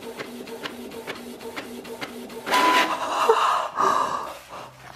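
Printer printing: rapid rhythmic clicking, about four clicks a second, over a pulsing low hum. It is followed from about halfway through by a louder, noisier stretch as the page is fed out.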